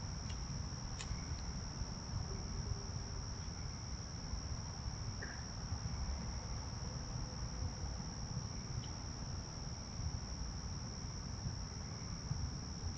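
Crickets trilling in one steady, unbroken high chorus over a low rumble.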